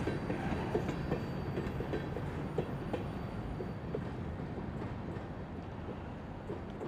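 Freight train rolling past, its car wheels clicking over the rail joints, the rumble slowly fading as it moves away.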